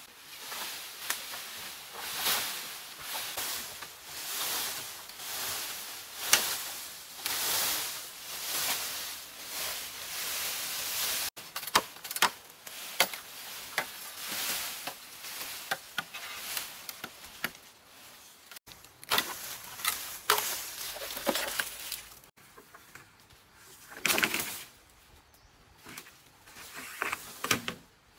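Dry bamboo leaves and stems rustling and swishing in repeated swells as a felled bamboo culm is pulled down through the thicket, then sharp knocks of a machete chopping side branches off the bamboo pole. Near the end come a few louder swishes of brush as the pole is dragged through undergrowth.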